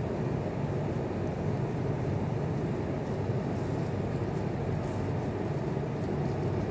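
Steady low hum and rumble of a room air conditioner running, cutting off abruptly at the very end.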